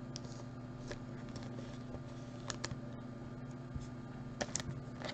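Trading cards being handled and set down on a tabletop: a few light clicks and ticks, strongest near the end, over a steady low hum.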